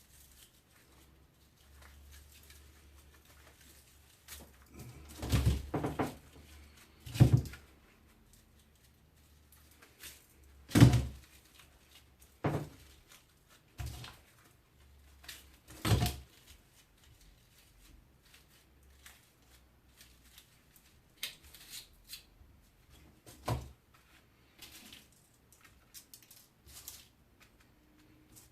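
Sharp knocks and clicks of hand tools and parts being worked on a strimmer's electric motor while its copper windings are pulled out: about six loud knocks spaced a few seconds apart, with lighter clicks between.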